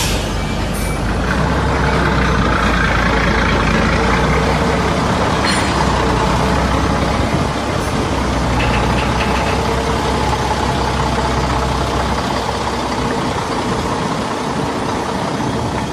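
Diesel engine of a container tractor-trailer running steadily at low speed while the truck manoeuvres and backs up, with a brief sharp click about five and a half seconds in.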